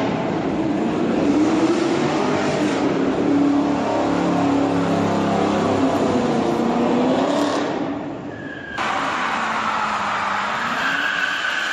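Cars doing burnouts: a Chevrolet Camaro's engine held at high revs, its pitch rising and falling, with the rear tyres spinning on the pavement. After a sudden cut near the end, a Chrysler 300's burnout: a steady high tyre squeal over the engine.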